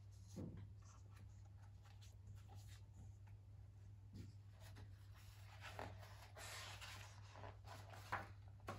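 Faint rustling and brushing of a hardback picture book's paper pages being handled, with a page lifted and turned near the end.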